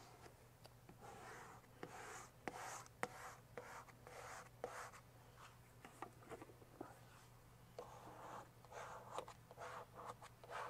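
Hand squeegee rubbing and scraping over vinyl wrap and its transfer paper in many short, faint strokes, with small clicks, as a vinyl stripe is pressed down onto a car body panel.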